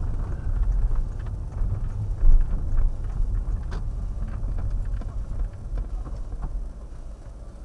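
Car running through a left turn and down a street, heard inside the cabin as a steady low engine and road rumble. A few light knocks and one louder thump come about two seconds in.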